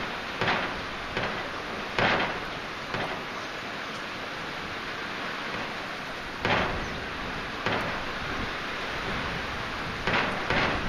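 Heavy rain falling steadily, with several brief louder splashes standing out above it.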